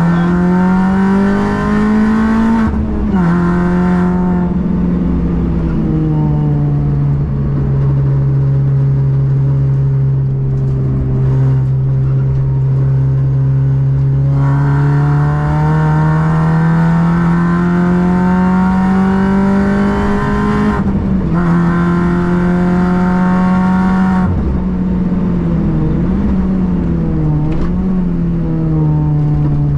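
Car engine driven hard on a race circuit, its pitch climbing under acceleration and dropping sharply at upshifts about three seconds in and again about two-thirds of the way through. Between these, the pitch sags and then rises again for several seconds.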